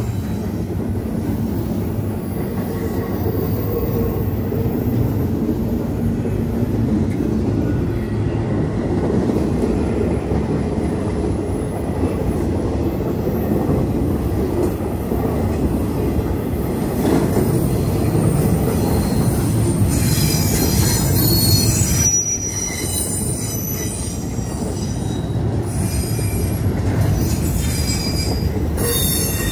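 CSX intermodal freight train's double-stack well cars and trailer-carrying spine cars rolling past with a steady rumble of steel wheels on the rails. High-pitched wheel squeal comes in about two-thirds of the way through and again near the end.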